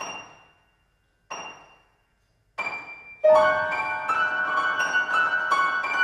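Grand piano played solo: three single struck notes about a second apart, each dying away into silence, then about three seconds in a loud rush of rapid notes that ring on together.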